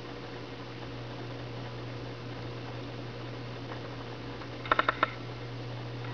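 Steady low hum and hiss of room tone, with a quick run of four or five sharp clicks a little before the end.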